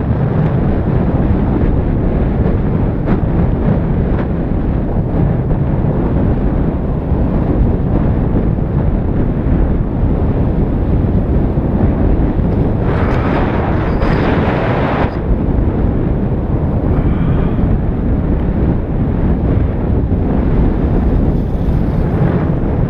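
Wind from downhill speed buffeting the microphone of a body-worn action camera on a skier: a loud, steady low rumble. About 13 seconds in, a sharper hiss joins it for about two seconds.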